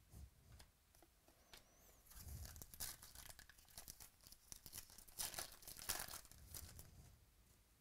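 Foil wrapper of a 2017 Panini Chronicles baseball card pack being torn open and crinkled by hand. The crackling is loudest about three seconds in and again around five to six seconds in, after a few light clicks of card handling.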